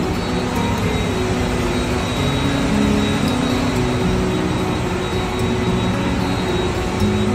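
Steady, loud running noise of a multi-unit rotogravure printing press, its film web running at about 400 metres a minute.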